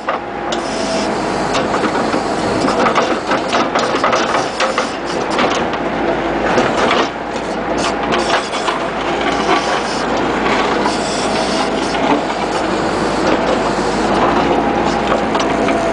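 Bobcat skid-steer loader's engine running steadily, with frequent short clanks and knocks from the backhoe attachment working.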